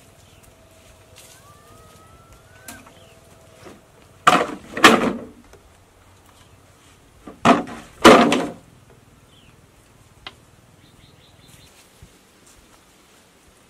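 Bamboo poles dropped onto a pile on bare earth, giving hollow, ringing knocks: two drops a few seconds apart, each landing as two quick, loud knocks.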